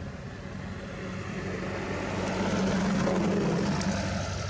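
A passing motor vehicle: a steady engine hum that swells to its loudest about three seconds in, then fades.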